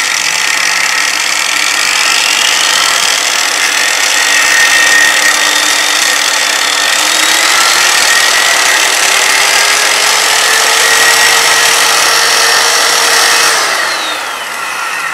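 Corded angle grinder running without load on reduced voltage from a 220 V, 2000 W speed controller. Its motor whine climbs in pitch through the middle as the voltage is turned up, then falls and fades near the end as the grinder slows.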